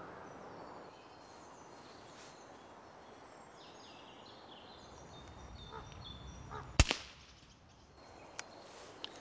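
A single shot from a moderated Daystate Red Wolf PCP air rifle about seven seconds in: one sharp crack followed at once by a smaller one. Before it, birds chirp over a quiet woodland background, and two faint clicks come near the end.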